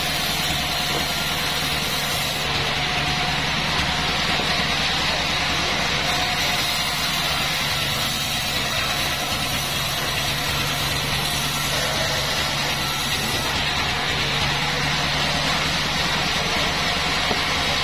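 36-inch bandsaw sawmill running steadily: a constant low engine-like hum with an even hiss over it.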